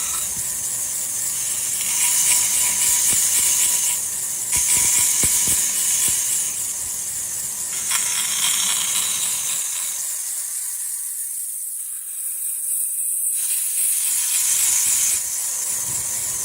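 Woodworking machinery running with a steady high-pitched hiss, its sound changing abruptly every few seconds and thinning to the high hiss alone for a few seconds past the middle.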